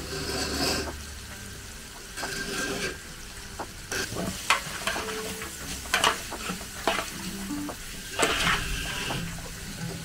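A large batch of chicken curry being stirred in a big pot as it fries and sizzles. The stirring tool scrapes and knocks against the pot a handful of times at uneven intervals.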